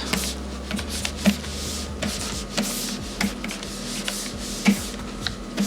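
Sketching by hand: a drawing tool scratching across paper in short, irregular strokes, with a few sharp ticks as it touches down.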